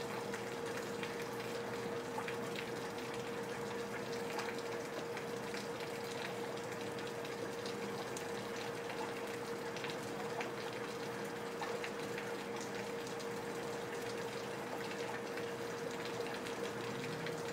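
Steady rain falling, with water running off leaky gutters and scattered drips ticking, over a faint steady hum.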